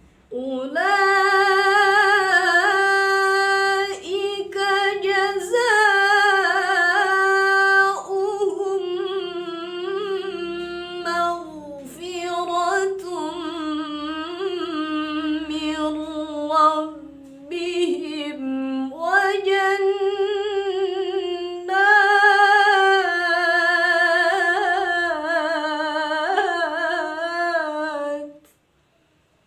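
A woman's voice reciting the Quran in a melodic, drawn-out tilawah style. Several long phrases with sustained notes and ornamented turns, stopping just before the end.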